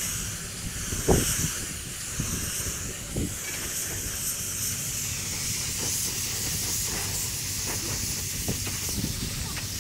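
Compressed-air paint spray gun with a siphon-feed cup hissing steadily as it sprays paint.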